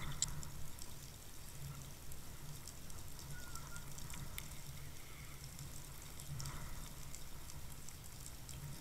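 Muffled underwater water noise heard through a Waterwolf camera's housing as it is towed on a fishing line: a low rumble that swells and fades, with faint scattered ticks and crackles.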